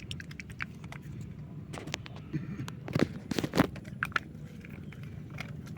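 Dry fishing bait mix being stirred and kneaded by hand, making crunching, crinkling clicks that come thickest about halfway through, over a steady low hum.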